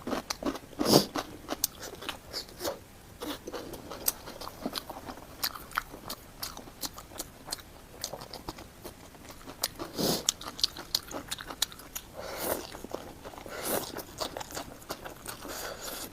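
A person biting and chewing food, with crunches and many small mouth clicks; louder bites come about a second in, near ten seconds, and twice between twelve and fourteen seconds.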